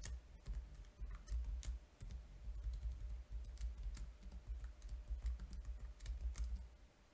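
Faint, irregular computer keyboard keystrokes as code is typed and edited, stopping shortly before the end.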